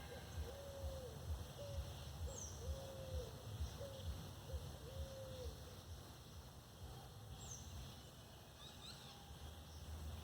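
A bird giving a series of low hooting calls: longer arched hoots alternating with short notes, repeated for about the first five seconds and then stopping. A few brief, faint high chirps from another bird come in between.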